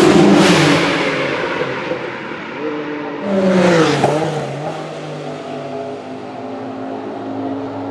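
Group C sports-prototype race car engines: a car at speed fading away, then a second car passing close with a sharp drop in pitch about four seconds in, settling to a steady lower engine note as it goes into the corner.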